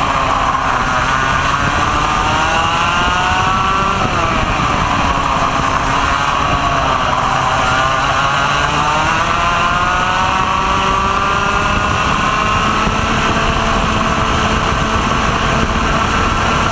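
Vortex ROK 125 cc two-stroke kart engine at race pace, heard from on board: its pitch climbs, drops sharply about four seconds in when the driver comes off the throttle for a corner, dips again, then climbs back up and holds high along the straight, over a steady low rush of wind and chassis noise.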